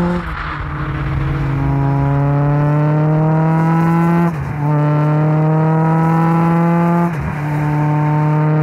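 Millington Diamond 2.7 four-cylinder engine of an MST Mk2 Escort accelerating hard, its note climbing steadily through each gear. The pitch drops quickly at two sequential-gearbox upshifts, about four seconds in and again near the end.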